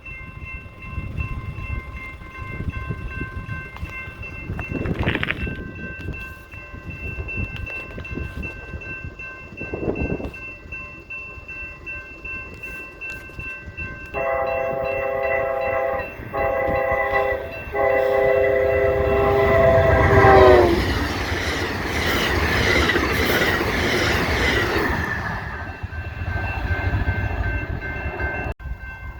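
Amtrak passenger train approaching at high speed and sounding its chime horn in three blasts, the last one long, with the pitch dropping as it passes. The loud rush of the train going by follows, then fades.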